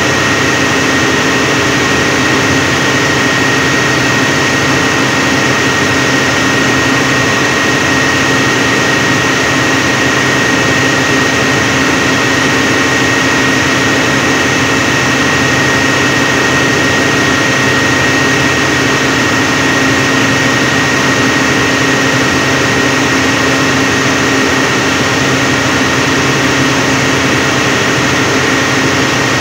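SDMO generator set running steadily at rated speed, with a constant engine hum and a steady high whine over it.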